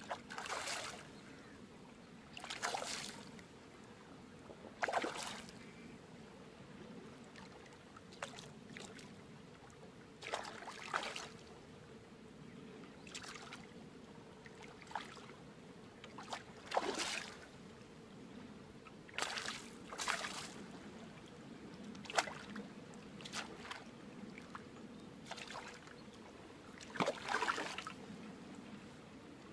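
A hooked river fish splashing and thrashing at the water's surface as it is played on a float rod, in repeated short sharp splashes every second or two.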